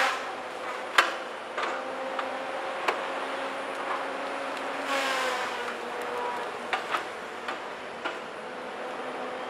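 Cat 521 track feller buncher running steadily. About five seconds in there is a noisy burst and the machine's pitch dips briefly, as if under load. Sharp cracks and snaps come at intervals.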